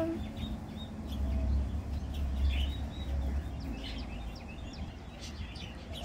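Small songbirds giving short, high chirps on and off, over a low rumble that fades out about two-thirds of the way in.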